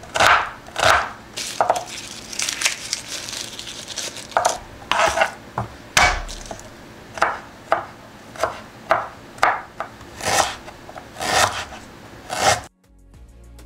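Kitchen knife chopping onion and ginger on a wooden cutting board: irregular sharp knife strikes with scraping between them, stopping abruptly near the end.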